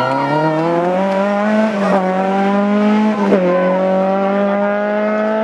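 Rally car engine running at high revs under hard acceleration, its pitch climbing steadily. It dips briefly twice, about two seconds in and again after three seconds, as it shifts up a gear.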